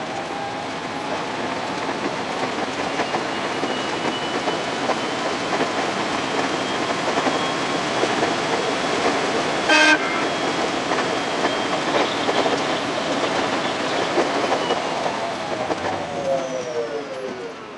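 521-series electric train running, heard from the cab, with steady rail and running noise. About ten seconds in, a brief horn toot. Near the end, the motor whine falls in pitch as the train brakes for the station.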